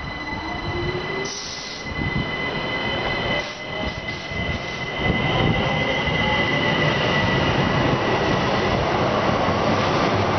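MÁV Stadler FLIRT electric multiple unit running along the platform and passing close by: wheel-on-rail rumble with a steady high squeal and a whine that rises in pitch. It gets louder about five seconds in as the train reaches the microphone.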